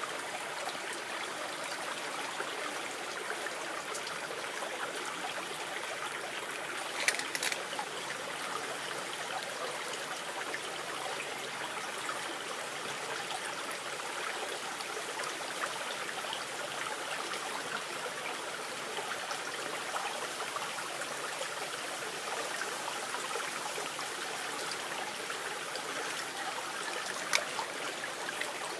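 Shallow stream trickling steadily over rocks, with a few brief clicks about seven seconds in and one sharp click near the end.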